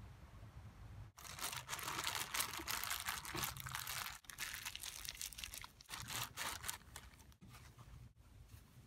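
Plastic zip-top bag crinkling loudly as it is handled and opened, starting about a second in; after a few seconds it drops to quieter, broken rustling.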